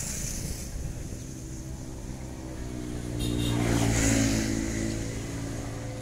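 A motor vehicle engine passing by, growing louder to a peak about four seconds in and then fading away.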